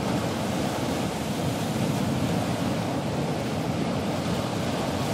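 Ocean surf washing onto a beach, a steady rush of waves.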